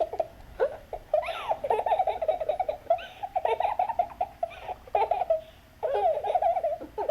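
A recording of a baby laughing and squealing, played back through an iPhone's small built-in speaker. It sounds thin, with almost no bass, and is nearly continuous apart from a brief gap just before the end.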